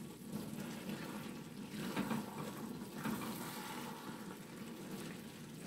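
A spatula stirring simmering okra stew in a pot: soft, wet stirring sounds of the thick stew moving.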